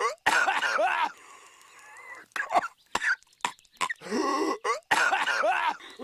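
Patrick Star's cartoon voice coughing: a few short, sharp coughs, then a long, rasping, wavering cough of about a second, then a faint wheezing breath. The same sequence repeats about four and a half seconds later, as a loop.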